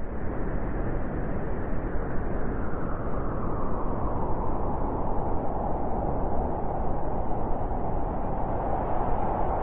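Blizzard wind blowing steadily: a continuous, even rush of snowstorm wind with no gusts or breaks.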